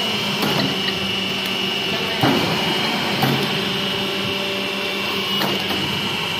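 Hydraulic paper plate making machine running: a steady hum from its motor and pump with a constant high whine, and four short knocks as the press die strokes on the foil-lined paper sheets.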